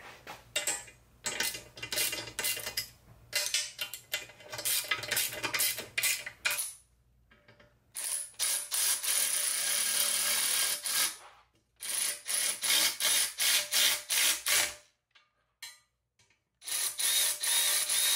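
Hand tools working on the motorcycle: several bursts of rapid ratchet-like clicking, broken by short pauses.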